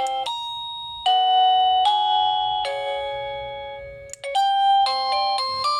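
Plug-in wireless doorbell receiver playing an electronic ringtone melody: a few slow chime notes, each fading away. About four seconds in there is a short click, and a quicker tune of notes starts, as the ringtones are stepped through.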